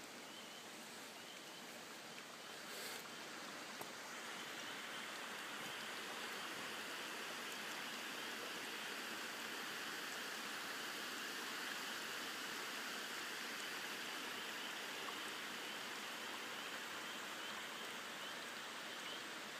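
Steady, faint hiss of running water, a little louder from about four seconds in.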